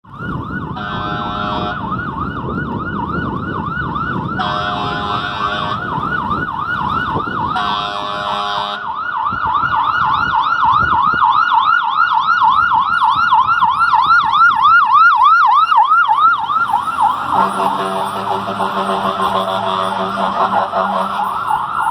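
Fire rescue truck responding with its electronic siren on a fast yelp, a rapid rise and fall about three to four times a second. Its air horn blasts three times over the siren in the first nine seconds, and a lower steady horn tone joins the siren for the last few seconds.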